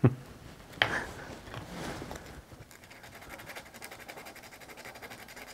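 A couple of small knocks, then faint, quick back-and-forth rubbing of an abrasive pad on aluminum tubing, scuffing its surface clean and rough before a hole in it is patched.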